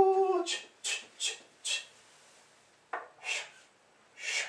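A brief hummed note from a man's voice, then a series of short scraping, rubbing sounds as books are slid and handled on wooden bookshelves, several in the first two seconds and more near the end.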